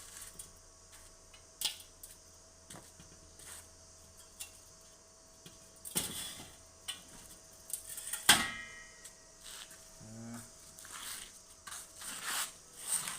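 Scattered knocks and clicks of a welded steel folding table being handled, with one loud metallic clank about eight seconds in that rings briefly.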